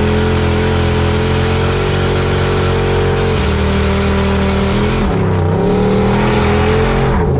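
Turbocharged 6.0-litre LS V8 of a 2002 Chevy Tahoe held at high revs during a burnout, a loud steady drone. The revs dip briefly about five seconds in and again near the end.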